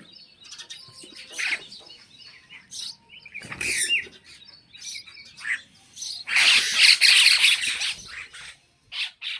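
Several birds chirping and calling in short bursts, with a louder, harsher flurry of calls about six seconds in that lasts around two seconds.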